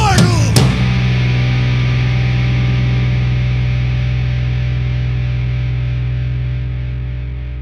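The end of a punk song: a last drum hit about half a second in, then a final distorted electric guitar and bass chord left to ring out, slowly fading.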